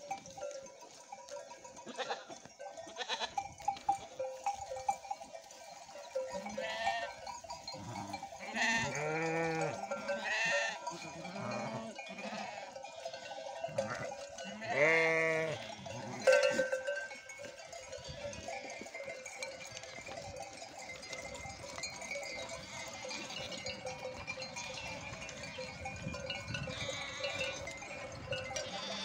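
Bells on a grazing flock of sheep and goats ring continually. Bleats come now and then, the longest and loudest about fifteen seconds in. A single sharp knock comes just after it.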